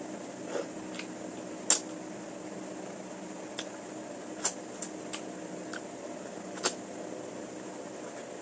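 Someone eating, with scattered sharp clicks and taps, the loudest about two seconds in. A steady machine hum runs underneath.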